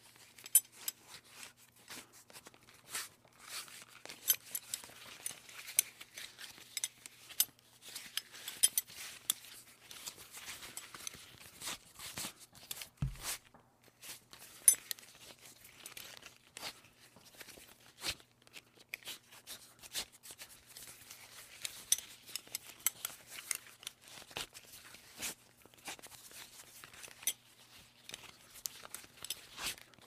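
Belt buckle being handled and fastened: irregular clusters of sharp metal clicks and clinks from the buckle, with rustling of the belt strap between them.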